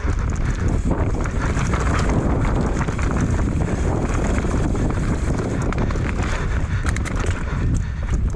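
Wind rushing over an action camera's microphone as a mountain bike runs fast down a rough dirt trail, the frame, chain and tyres rattling over the ground, with a cluster of sharper knocks near the end.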